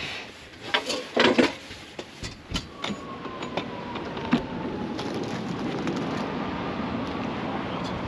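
A few knocks and clatter of camp cookware being handled during cleanup, the loudest just over a second in, then a steady rushing noise.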